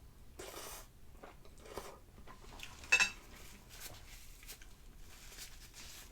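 A person chewing and eating instant noodles with fried eggs and cucumber, in a series of short separate mouth sounds, with one sharp click about three seconds in.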